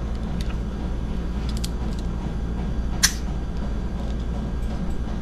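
Small metallic clicks from a CO2 airsoft revolver's grip and cartridge tightening screw being handled, with one sharp click about three seconds in, over a steady low hum.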